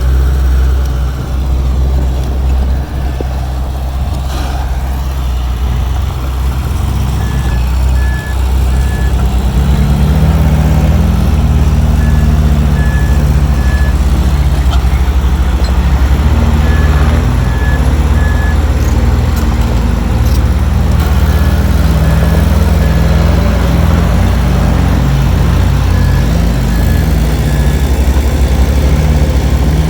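Heavy diesel earthmoving machinery running under load, its engine drone growing louder about ten seconds in. A back-up alarm beeps in short groups of about three, repeating every four to five seconds: a machine reversing.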